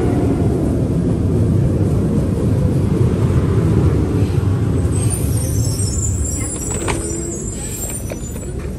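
Metro train pulling into the platform, its wheels rumbling as it slows. A high hiss joins about halfway through and a sharp click comes late on, as the train stops and the doors open.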